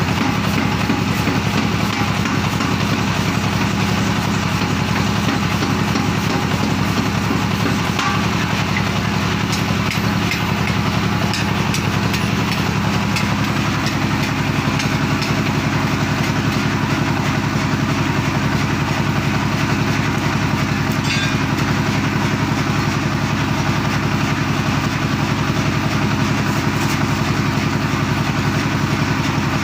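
Power forging hammer machine running steadily, with a fast, even mechanical rumble, a slight change in its tone about halfway through, and a few faint metallic clicks.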